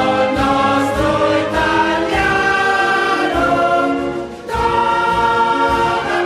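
Choral music: a choir singing held chords over an accompaniment with a soft, steady beat, with a short break between phrases a little after the middle.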